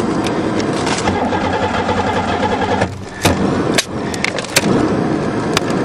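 The Buick 3.8 V6 being cranked over by its starter without catching. There is a short break about halfway, then more cranking with a few sharp clicks.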